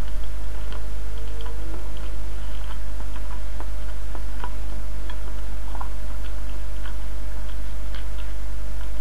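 Someone eating: irregular small clicks and scrapes of a fork on a plate, with chewing, over a loud steady low hum.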